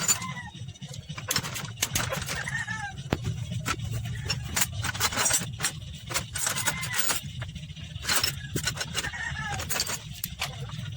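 Metal engine parts and tools clinking and knocking as they are handled, in irregular sharp clicks over a steady low hum.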